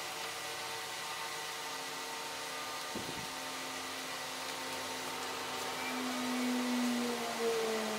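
Industrial sewing machine's electric motor humming steadily with a hiss, its pitch sinking slowly in the second half. One soft knock comes about three seconds in.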